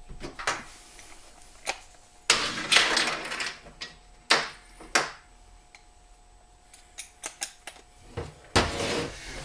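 Irregular clunks, clicks and rattles of engine parts and hardware being handled as the new flywheel cover is set onto a Predator 212 engine, with longer scraping rattles about two seconds in and near the end.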